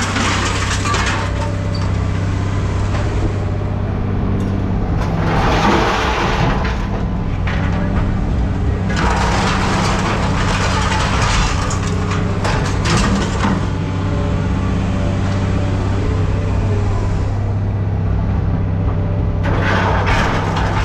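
Heavy machinery running with a steady low hum, with several stretches of crunching and clattering scrap metal as aluminum extrusion is loaded and compacted into a bale.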